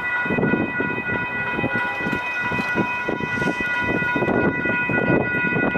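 An electronic railroad crossing bell (WCH Type 1.5) ringing steadily, as it does through the whole activation while the crossing warns of an approaching train. A rough rumbling noise runs underneath.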